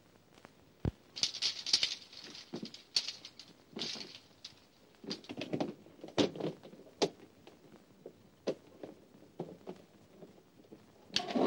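Irregular rustling of clothes and handling noises as garments are stuffed into a hard-shell suitcase, with a sharp thump about a second in and scattered clicks and knocks from the case.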